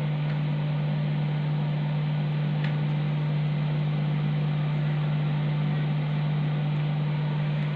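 Steady low electrical hum with an even hiss from an old sound system left running: amplifier and mixer idling with nothing playing through them.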